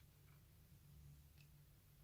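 Near silence: faint low hum, with two faint short blips.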